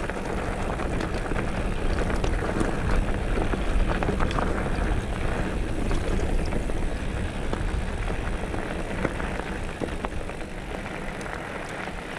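Wind rumbling over an action camera's microphone as a mountain bike rolls fast down a loose gravel track, with the tyres crunching over stones and small clicks and rattles from the bike. The rush eases a little in the second half.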